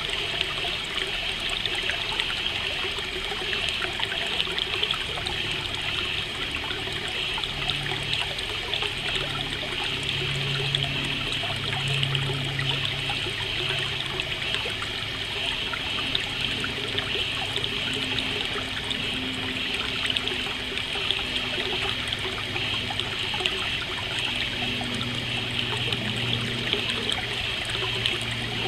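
Steady trickle of running stream water, with a faint low hum that comes and goes underneath.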